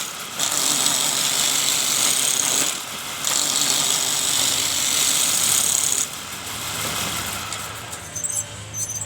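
Homemade electric-motor wood lathe turning wood, the cutting tool hissing against the spinning workpiece in two loud stretches of a few seconds each. Near the end it drops to a quieter, low, steady motor hum, with a few clicks.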